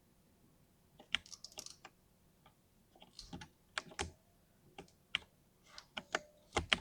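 Mechanical keyboard with lubed linear switches being typed on: irregular runs of keystrokes, starting about a second in after a short pause.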